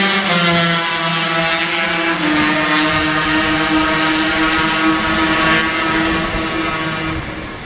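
250cc two-stroke Grand Prix racing motorcycle engines running on track. The engine note holds steady, steps up in pitch about two seconds in, then fades near the end.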